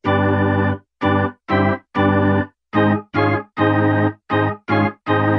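Channel intro music: a run of about ten short keyboard chords, each stopping abruptly, with brief silences between them in an uneven rhythm.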